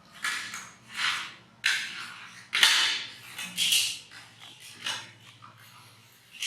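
A baby monkey giving a run of short, breathy coughs, roughly one a second, some louder than others.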